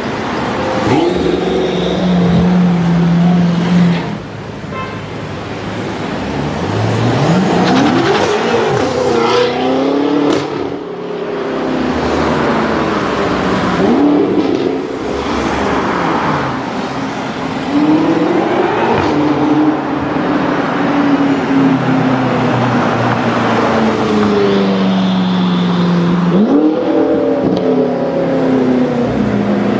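BMW M5 F10's twin-turbo V8 revving and accelerating several times, its pitch rising quickly and falling back, with steady running in between.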